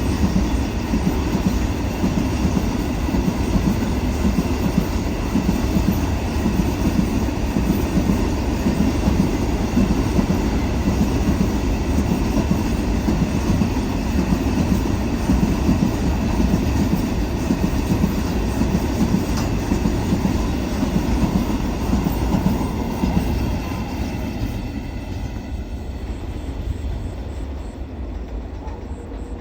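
A train rolling past, its wheels rumbling and clacking over the rails; the sound fades away over the last few seconds.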